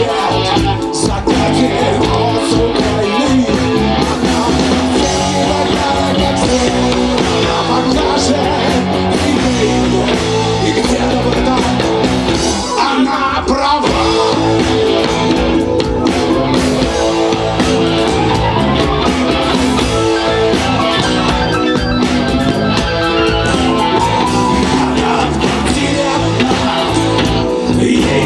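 Rock band playing live: electric guitar and bass guitar under a male lead vocal.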